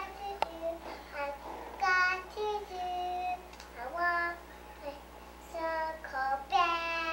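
A young girl singing alone, unaccompanied, in short high phrases with held notes and slides between them.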